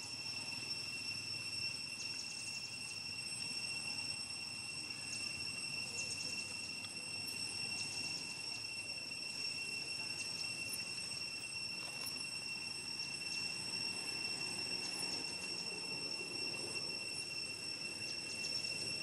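Steady, high-pitched insect drone: an unbroken whine with a fainter, higher tone above it, and a few faint clicks.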